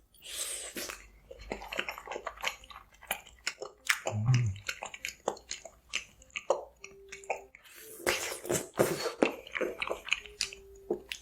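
Close-miked eating: biting and chewing with many sharp wet mouth clicks, and a brief low hum about four seconds in.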